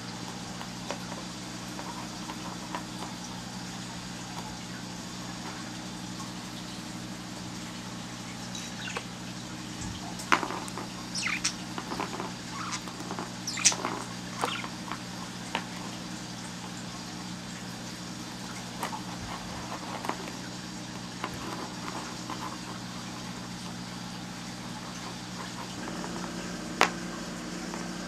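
Light clicks and taps of a budgie's beak and feet on plastic game pawns and a cardboard game board, clustered in the middle and again near the end, over a steady low hum.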